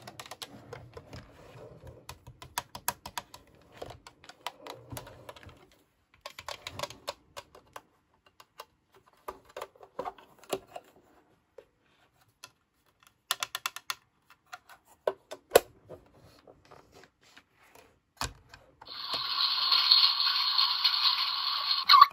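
Fingers clicking and tapping the plastic buttons and oven door of a Licca-chan toy kitchen, in irregular quick clicks. Near the end a steady electronic sound effect plays from the toy's small built-in speaker for about three seconds.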